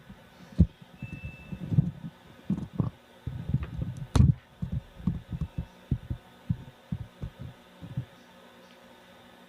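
Irregular low thumps and knocks of handling, with one sharp click a little after four seconds in, over a faint steady hum; the thumps stop about eight seconds in.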